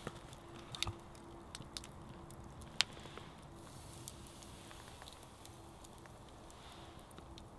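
Campfire coals crackling faintly, with a few sharp pops, the loudest about three seconds in, and soft squishing as raw steak is handled and laid on the wire grill.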